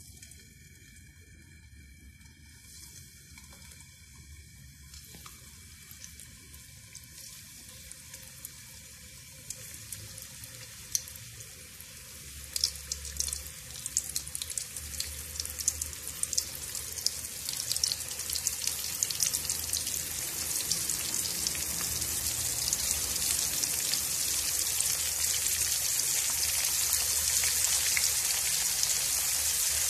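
Flour-coated chicken pieces deep-frying in hot oil in a wok: a sizzle that starts faint and builds as more pieces go in, with crackling pops from about ten seconds in, growing into a loud steady hiss.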